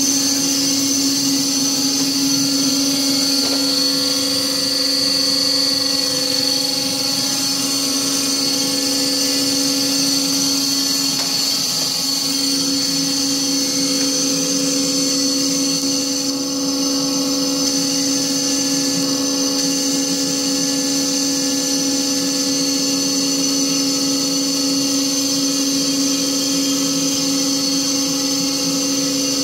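BOMAR Workline 610.450 DGH semi-automatic metal-cutting band saw running, a steady hum with a high-pitched whine.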